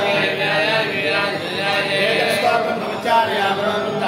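Male voices chanting mantras in a continuous recitation.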